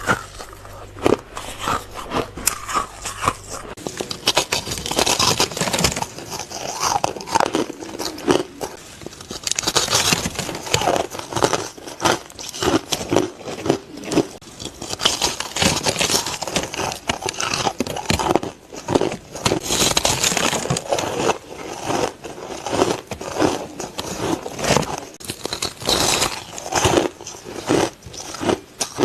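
Ice being bitten and chewed close to the microphone: a steady run of sharp crunches and cracks as the cubes break between the teeth.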